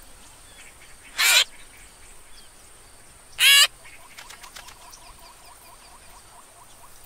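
Two short, loud bird calls from the plump cartoon chicks in the nest, one about a second in and one about three and a half seconds in, each with a wavering pitch. Faint background birdsong with a soft repeating trill runs underneath.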